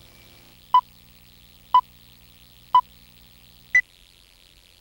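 Four short electronic beeps a second apart, the first three at one pitch and the fourth an octave higher, in the pattern of a countdown or time-signal tone. A faint hum sounds under the beeps and stops with the last one, over a steady hiss.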